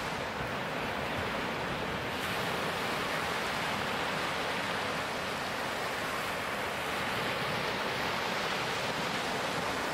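Ocean surf washing onto a sandy beach, a steady rush of breaking waves.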